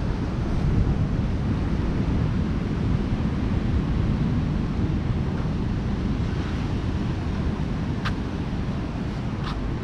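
Ocean surf washing on the beach, with wind buffeting the microphone. Two brief high clicks come near the end.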